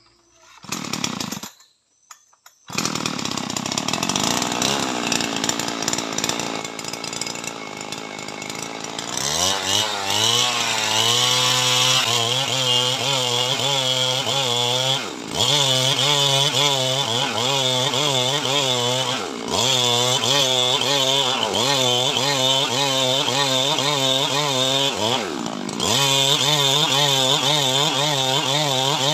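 Ogawa two-stroke gasoline chainsaw starting with a short burst, then idling. About nine seconds in it revs up and rips lengthwise along an acacia log, its engine pitch wavering constantly under load. It dips briefly three times as the bar is eased off the cut.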